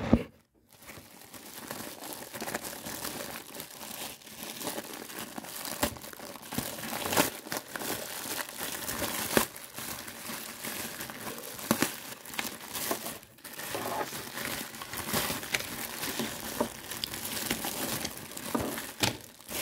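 Thin clear plastic bag crinkling and rustling as hands handle it and pull it open: an unbroken run of irregular crackles, with a brief lull about two-thirds of the way through.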